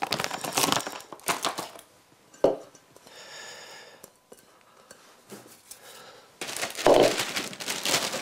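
Plastic bait bags crinkling as they are handled, with a single knock about two and a half seconds in, then louder crinkling of a clear plastic bag near the end.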